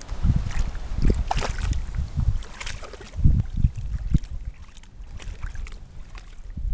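Wind buffeting the microphone in uneven gusts, strongest about a second in and again around three seconds.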